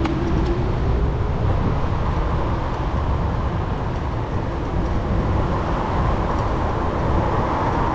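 Steady city traffic noise heard from a bicycle ride, under a strong low rumble on the microphone, with a hum that grows louder near the end.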